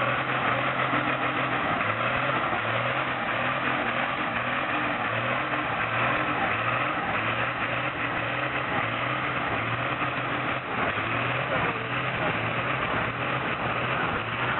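A pulling tractor's diesel engine, a bus engine, running steadily with an even pulsing beat and struggling for power, with not all of its cylinders firing properly.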